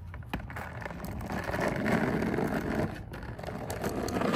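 Skateboard wheels rolling over rough, cracked asphalt scattered with gravel: a steady rolling noise that grows louder towards the middle, with a short knock just after the start.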